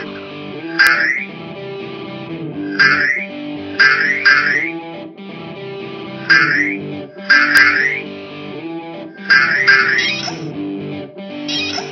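Guitar-led background music with about ten short, bright cartoon sound effects laid over it, one every second or so. The effects are the loudest sounds and match the cartoon wheels bouncing.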